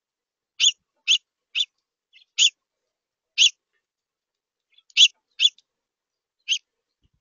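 A small songbird giving short, sharp chip calls, eight of them at irregular intervals, high-pitched and fairly loud.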